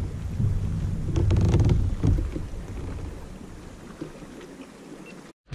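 Wind rumbling on the microphone over a kayak on open water, with faint small knocks. It is loudest in the first two seconds, eases off, and cuts out abruptly near the end.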